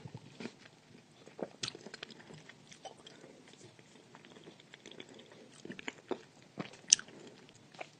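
Close-up chewing and crunching of edible chalk: irregular sharp crunches and small clicks as pieces are bitten and ground between the teeth, with one sharper crunch about seven seconds in.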